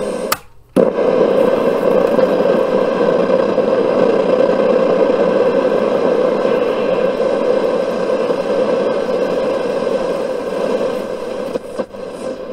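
Panasonic RF-2400 portable radio's speaker putting out loud, steady static with no station coming in. Near the start the noise cuts out for about half a second between two clicks as the band switch is moved, and near the end it drops and crackles as the tuning is turned.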